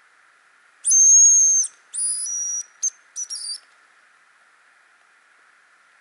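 Hazel grouse decoy whistle blown close by, imitating the bird's song: a long thin high whistle, a second long note that steps down, then a short chirp and a quick broken trill.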